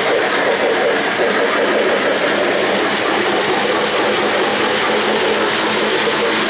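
O-gauge model freight trains rolling past on three-rail track: a steady rumble of metal wheels on the rails and the locomotive's electric motors.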